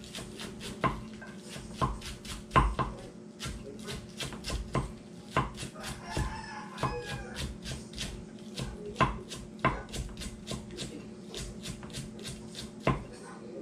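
Knife rapidly chopping fresh green herbs on a thick wooden chopping block: a quick run of sharp knocks, about three to four a second, with a few louder strikes scattered through.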